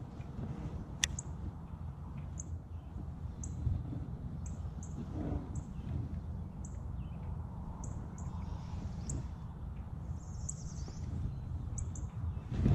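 Small birds chirping, short high calls repeating every half second to a second, over a steady low background rumble.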